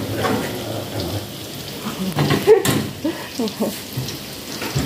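Tofu cubes deep-frying in hot oil in a wok: a steady sizzle with scattered small crackles and pops.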